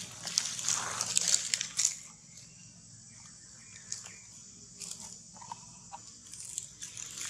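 Steady high-pitched buzz of insects such as cicadas or crickets in the trees. In the first two seconds comes a loud burst of crackling rustles, and a few faint clicks follow later.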